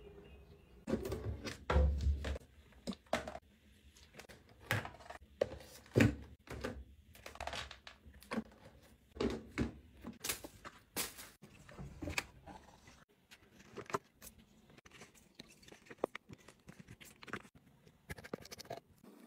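Plastic storage box and plastic bottle being handled: an irregular string of thunks, clicks and light scrapes, louder knocks near the start and about six seconds in.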